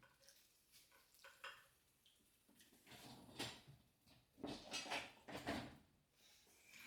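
Light clinks and knocks of dishes, a cup and cutlery being handled on a table: a handful of short, quiet taps spread over several seconds.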